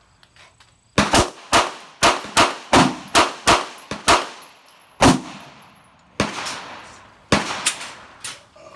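Rapid semi-automatic gunfire from a red carbine-style gun: about a dozen shots in uneven strings, some close together and some a second apart, each followed by a short echo.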